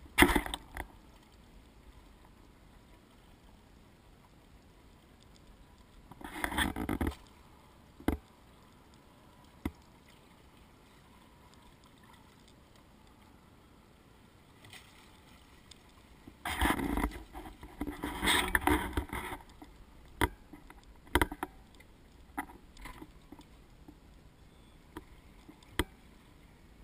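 Small inflatable boat (Zodiac) drifting at sea: water sloshes against the hull in a few louder spells of a second or more, and scattered sharp knocks come near the end.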